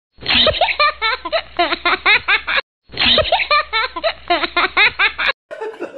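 A clip of high-pitched laughter played twice in a row, each time cutting off suddenly after a little over two seconds, with a faint low hum under it.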